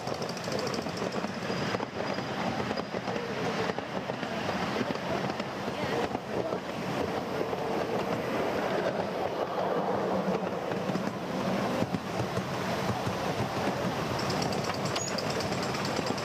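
Miniature railway passenger cars running along the track: a steady rumble of small steel wheels on the rails with irregular clicks over the rail joints.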